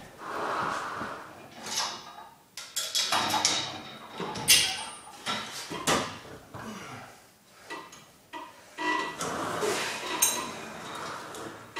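A homemade rowing machine in use: a seat rolling along a Concept2 slide rail while a universal weight machine's cable runs through its pulleys and lifts the weight stack, with each stroke. Rolling swishes rise and fall, broken by several sharp knocks.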